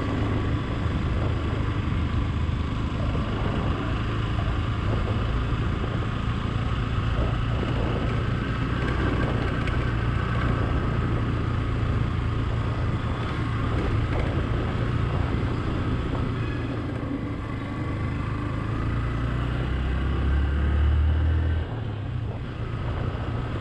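Motorcycle engine running steadily under way, a low even rumble. Near the end it swells for a couple of seconds and then drops off suddenly.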